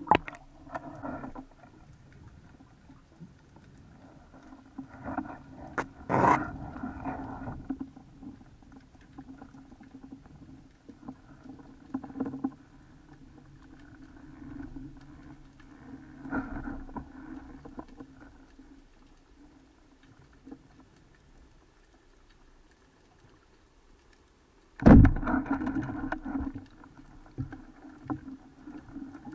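Water sloshing and a dull steady hum through an underwater camera housing during a breath-hold dive, with scattered knocks. Near the end one sudden loud thump as the banded wooden speargun, a Seawolf Rapid 85, fires and its shaft strikes, followed by a short spell of rattling and sloshing.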